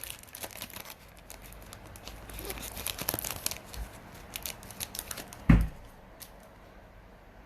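Foil trading-card pack wrapper being torn open and crinkled by hand, in bursts of crackling, with one sharp thump about five and a half seconds in.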